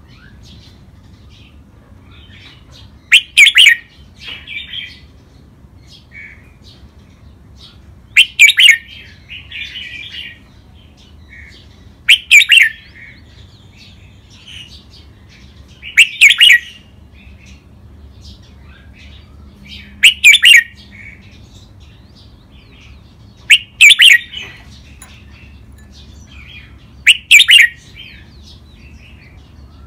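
Red-whiskered bulbul singing in its cage: seven loud, short song phrases about four seconds apart, each followed by softer chattering.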